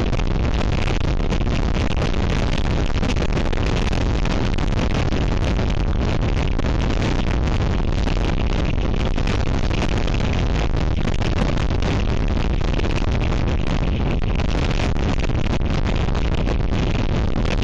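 Gale-force wind buffeting the nest camera's microphone: a loud, steady rushing noise, heaviest in the low end.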